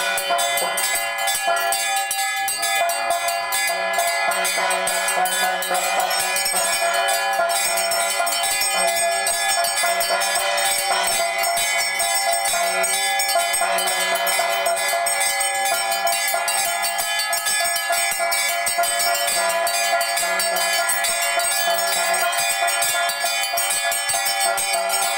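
Temple bells ringing continuously during a puja, with rapid unbroken strikes and many overlapping ringing tones.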